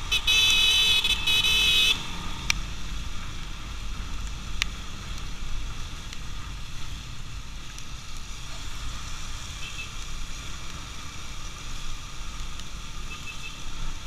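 A vehicle horn blares near the start, held for nearly two seconds with a brief break, over the steady low rumble of the motorcycle riding along.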